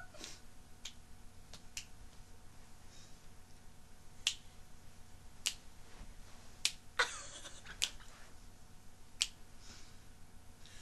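About eight sharp clicks, spaced irregularly, with a short rustle about seven seconds in.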